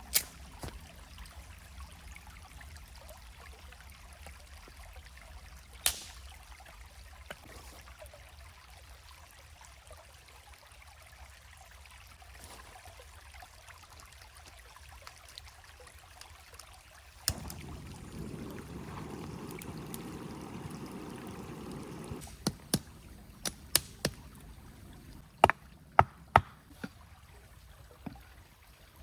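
Water trickling steadily in a stream. A few sharp knocks come early on, a louder rushing stretch comes about two-thirds of the way through, and a quick run of sharp knocks follows it.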